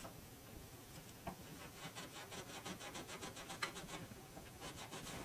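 Faint, quick scratching strokes, several a second: steel wool rubbed back and forth over a metal coin ring to smooth its surface before polishing.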